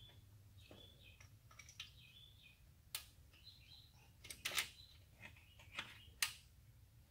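Metal clicks and knocks from an automotive AC compressor being handled and seated against its mounting bracket on an LS3 engine, a handful of sharp knocks with the loudest about four and a half and six seconds in. Birds chirp faintly in the background.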